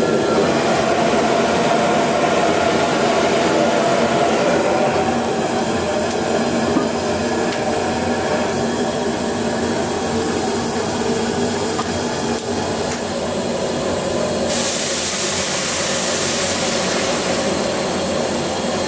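Gas burner under a black steel wok, running with a steady rushing noise, with a single clank about seven seconds in. From about two-thirds of the way through, a bright hiss of water boiling hard in the wok joins it.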